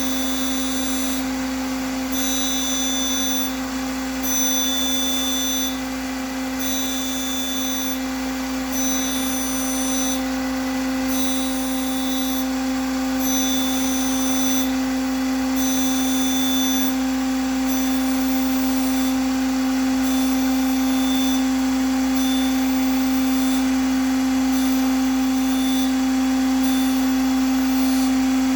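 Boyar Schultz 612 surface grinder running under hydraulic X-axis power feed, with a steady motor and pump hum. A higher whine cuts out briefly about every two seconds as the table reciprocates and the wheel passes over the work. The whine grows fainter later on.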